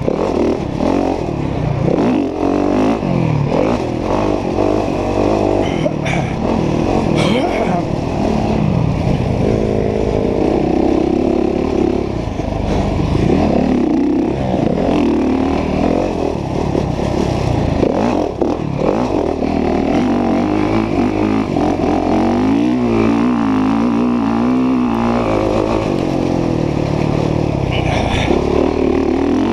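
Dirt bike engine revving hard and easing off over and over as it is ridden, its pitch repeatedly climbing and dropping with throttle and gear changes, with a few short knocks.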